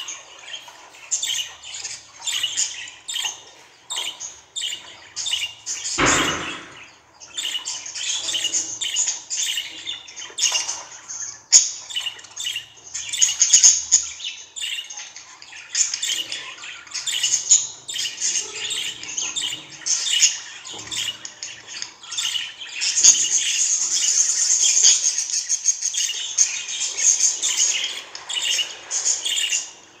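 Budgerigar chattering with rapid high chirps and warbles, a dense run of song about two thirds of the way through.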